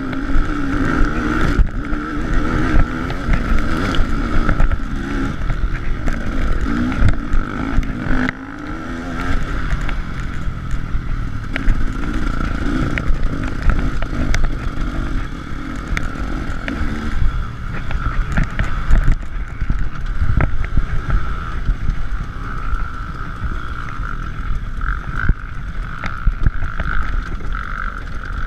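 KTM 300 EXC's two-stroke single-cylinder engine running under load while riding a rough trail, its pitch rising and falling with the throttle. Frequent knocks and jolts from the bumpy ground, with wind buffeting on the microphone.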